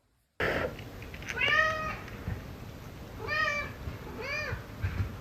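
A cat meowing three times, each meow rising and then falling in pitch, over a steady background hiss.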